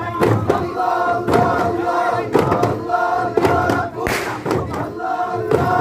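Group of men chanting dhikr in unison while striking daff frame drums in time, the chanted phrase repeating about once a second. One strike about four seconds in is especially sharp and loud.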